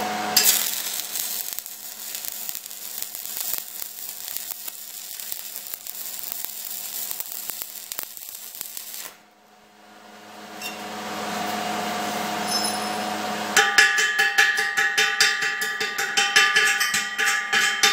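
Stick welding: the arc of a 3/32 low-hydrogen electrode crackles and hisses for about nine seconds as a pass is laid on thin steel tubing, then breaks off. After a short pause a hiss builds again, and from about two-thirds of the way in there is a fast run of sharp metallic clicks with ringing.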